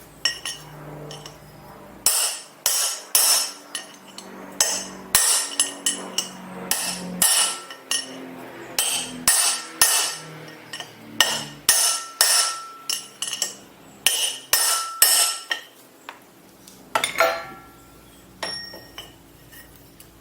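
Repeated hammer blows on metal, each with a short metallic ring, about two a second, starting about two seconds in and thinning out near the end.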